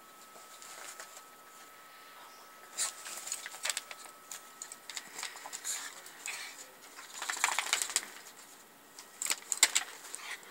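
A Chihuahua puppy and a kitten play-fighting on a bed: rustling of bedding and scattered clicks and rattles from cables and a keyboard under their paws, in bursts, busiest around the middle and near the end.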